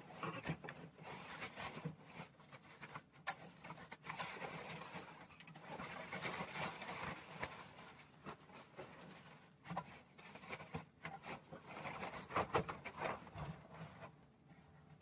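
Freshly washed laundry being pulled out of a front-loading washing machine's drum: fabric rustling and swishing, with a few sharp knocks.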